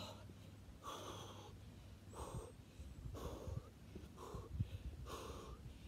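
A man breathing hard from exertion during skater hops, one heavy breath about every second.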